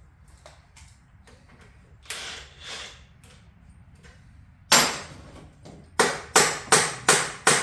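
Hammer striking metal during a motorcycle engine teardown: one hard blow about halfway through, then five quick blows, about three a second, near the end. Before them come a few light clicks and two short scraping sounds.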